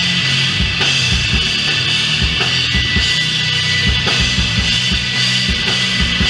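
Heavy metal band playing live: distorted guitars and bass holding low sustained notes over a drum kit, with repeated kick-drum hits and a dense wash of cymbals.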